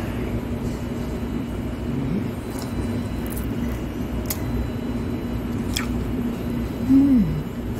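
Steady low rumble and hum of restaurant background noise, with a few faint clicks. A brief falling voice-like 'mm' about seven seconds in is the loudest sound.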